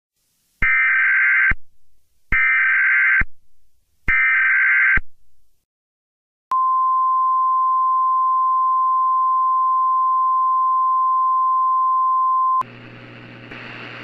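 Emergency Alert System header: three short bursts of screechy SAME data tones, then a single steady warning tone near 1 kHz held for about six seconds, the National Weather Service alert tone. It cuts off abruptly into a faint steady hum and hiss.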